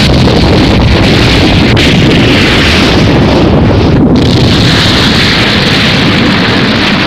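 Animated explosion sound effect: a loud, sustained rushing blast, with a brief thinning about four seconds in.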